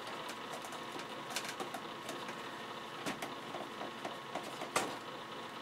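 Scattered small clicks and light taps from hands and a small tool working on an RC model airplane's fuselage during assembly, over a steady low room hum.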